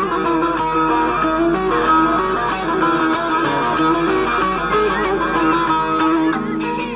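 Bağlama (saz) music: a plucked Turkish folk melody played on without a break.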